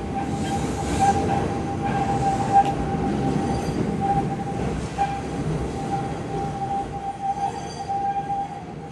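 Keihan 800 series train pulling away over the pointwork and round a tight curve, its wheels squealing in a steady high tone over the low rumble of the running gear. The sound fades slightly near the end as the train draws off.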